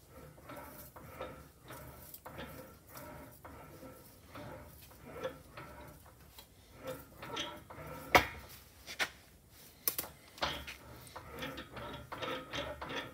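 Sheet-metal panel being rolled back and forth through an English wheel, stretching it into a crown: a soft rolling scrape of metal between the wheels, repeating about twice a second. A sharp metallic clack about eight seconds in, with lighter clicks just after.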